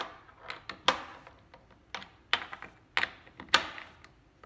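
Small pieces of metal type and spacing material clicking and tapping as they are nudged into place to center a letterpress form in its chase. A handful of sharp, irregular clicks, the strongest a little under a second in and again around two, three and three and a half seconds.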